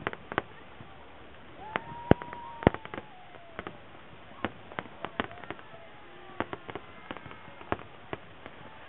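Aerial fireworks shells bursting: a string of sharp, irregular bangs and pops, the loudest two about two and two and a half seconds in.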